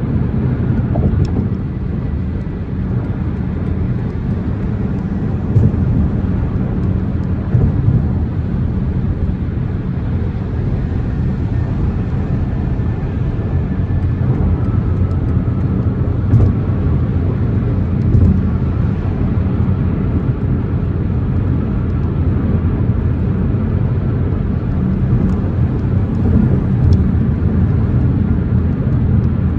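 2024 BMW M4 Competition's twin-turbo 3.0-litre inline-six on the move, with engine and road noise making a steady low rumble and no clear revving.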